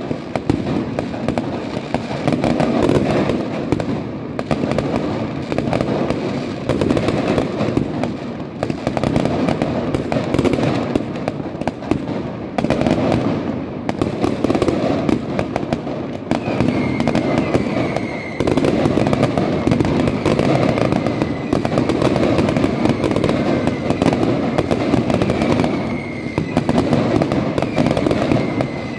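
Fireworks display: aerial shells and low-level effects bursting in a dense, continuous barrage of bangs and crackle with no pauses. About halfway through, a thin whistle slowly falling in pitch starts and carries on under the bangs.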